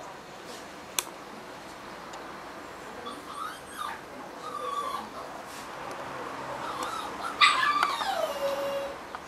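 English bulldog whimpering in a few short whines, then a louder, drawn-out whine that slides down in pitch near the end. A single sharp click about a second in.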